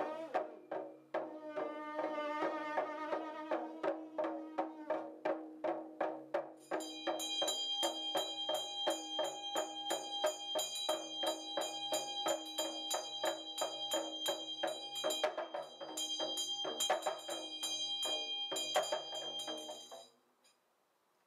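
A Chöd damaru hand drum rattled in a quick, steady rhythm of about four strokes a second, with a kangling thighbone trumpet blowing over it during the first few seconds. From about six seconds in a Tibetan hand bell rings continuously over the drumming. All of it stops about a second before the end.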